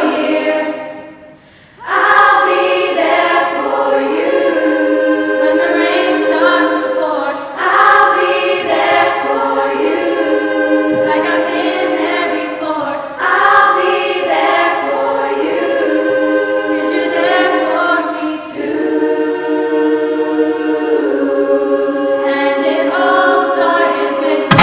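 A school choir of teenage girls singing together in sustained chords, breaking off briefly about a second in before the next phrase.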